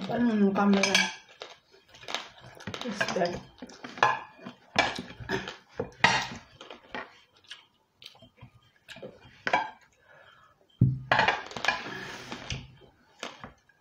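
Metal forks clicking and scraping against ceramic plates as food is eaten, in many short irregular knocks.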